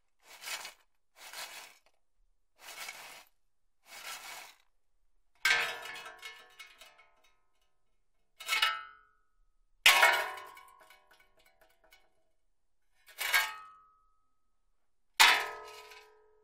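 Metal shovel scraping into ash four times in quick strokes, then clanging against metal five times, each clang ringing on and dying away.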